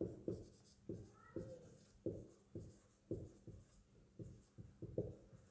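Felt-tip marker writing on a whiteboard: a quick run of short, faint strokes, a few a second, as letters are written out.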